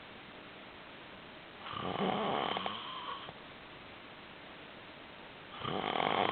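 Loud snoring: two long snores about four seconds apart, the second starting near the end.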